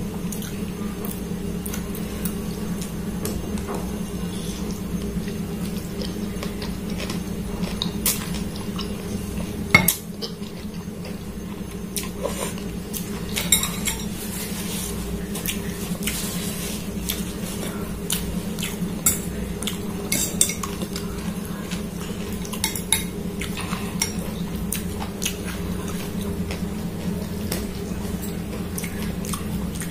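Metal fork and spoon clinking and scraping against a glass bowl while noodles are stirred and lifted. The clicks are scattered, with the sharpest about ten seconds in, over a steady low hum.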